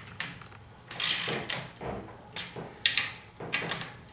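Socket ratchet wrench clicking in a series of short strokes as the propeller hub bolts are snugged down by hand, the loudest stroke about a second in.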